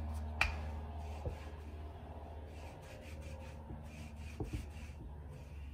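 Wooden rolling pin rolling over bread dough on a silicone baking mat: a soft, steady rubbing, with one light knock about half a second in and a few faint taps later.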